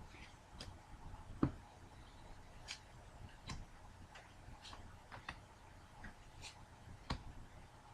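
Scattered light clicks and taps at uneven intervals, about one a second, with one louder knock about a second and a half in: trading cards being handled and set down on a table.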